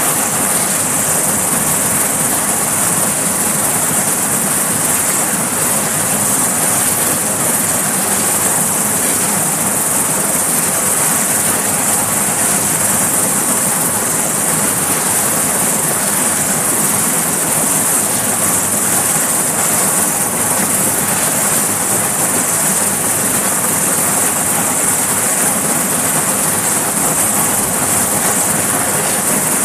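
Sikorsky S-61 helicopter running on the deck before lift-off, its turbines and turning rotor giving a loud, constant high-pitched hiss and whine that holds steady with no change in pitch.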